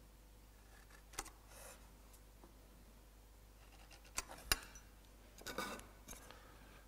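Light clicks and taps of a small steel square and pencil against the wooden stile and bench as a mortise is marked out: one click about a second in, two sharper clicks just after four seconds, then a short run of taps near the end, over a low room hush.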